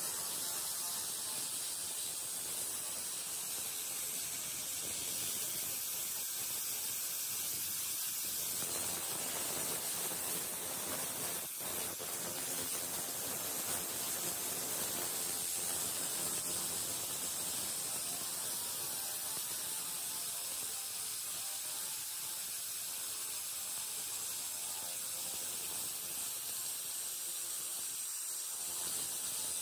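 Handheld 300W pulsed fiber laser cleaner firing on rusty metal: a steady, even hiss without a break.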